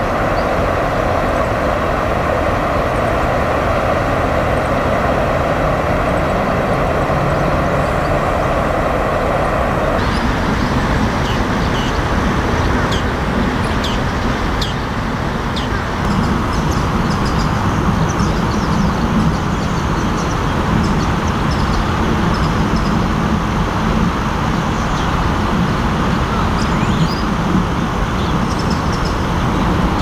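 Steady loud rush of flowing river water. About ten seconds in it changes abruptly to a different stretch of water, with scattered short high chirps over it.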